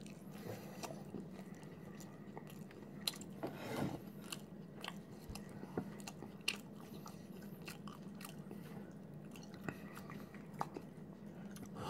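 Faint chewing of a mouthful of chicken wrap in a soft flour tortilla, with scattered small clicks of the mouth.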